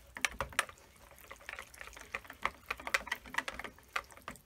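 Wire whisk stirring thin cold-process soap batter by hand in a ceramic bowl: irregular clicks and scrapes of the wires against the bowl, several a second, with a light liquid swish. The batter has not yet reached trace.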